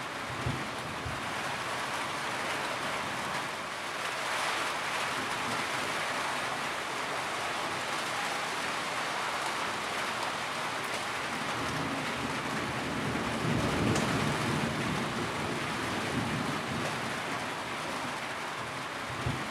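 Steady rain falling, with a low rumble of distant thunder swelling and fading about two-thirds of the way through.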